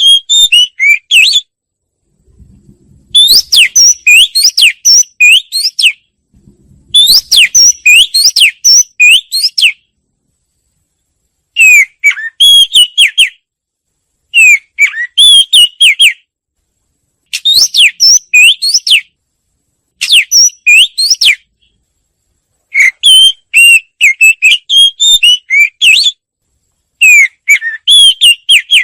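Wagtail song: phrases of quick, high whistled notes and sweeping trills, each lasting one to three seconds, separated by pauses of about a second and repeating over and over.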